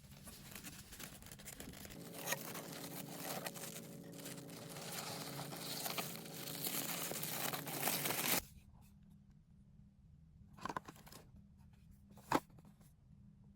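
Product packaging being torn and crinkled open, a continuous rustling tear that grows louder and stops abruptly about eight seconds in. Two light clicks follow near the end.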